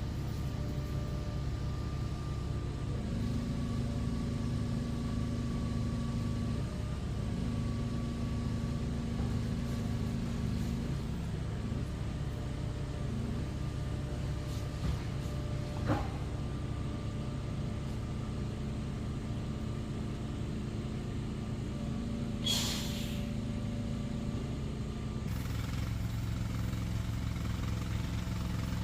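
Engine of a shed-delivery vehicle running steadily, its note stepping up and down a few times. A sharp click comes about halfway through, and a short hiss about three quarters of the way in.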